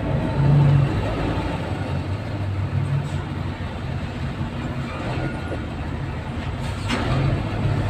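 Idling and slow-moving engines in a traffic jam, heard from inside a vehicle's cab: a steady low engine rumble under general road noise, with a short sharp knock about seven seconds in.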